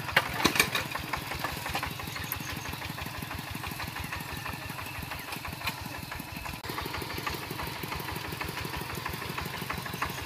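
Kubota single-cylinder diesel engine of a two-wheel walking tractor idling with a fast, even thudding beat. A few sharp knocks sound in the first second, and the engine's note shifts slightly about two-thirds of the way through.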